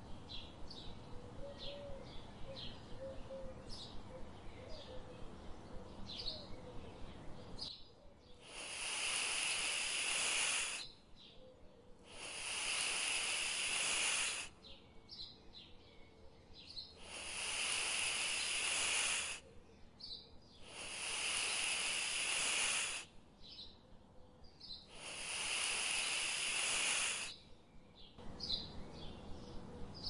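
Small birds chirping in short, high calls, and from about eight seconds in five long hissing sounds of about two seconds each, spaced a second or two apart and louder than the birds.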